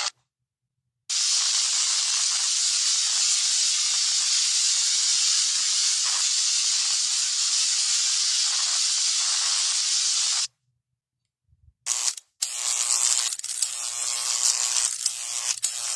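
Electricity sound effect: a steady hissing crackle of electric current that starts about a second in and cuts off suddenly after about nine seconds. After a short gap and a couple of brief bursts, an electric buzz of several steady pitches takes over.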